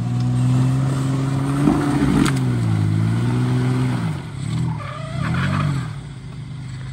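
Off-road 4x4's engine revving under load as it tries to climb a slope, the revs rising and falling several times. One sharp knock comes about two seconds in, and the engine eases off near the end.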